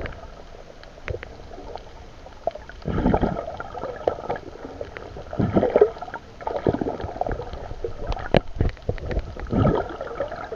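Water heard through a submerged camera: muffled gurgling and sloshing that swells in irregular surges every few seconds, with scattered sharp clicks.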